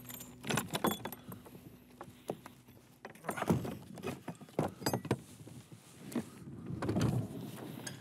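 Padlock and chain on a wooden barn door rattling and clicking in irregular bursts as the lock is handled by a gloved hand.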